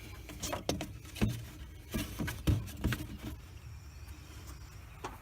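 Hand tools and metal parts being handled while working on a truck engine: a handful of sharp knocks and clacks over the first three seconds, one more near the end, over a low steady hum.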